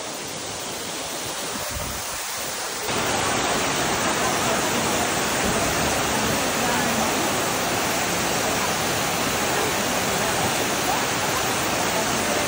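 Waterfall pouring into a pool: a steady rush of falling water that jumps louder about three seconds in, then holds steady.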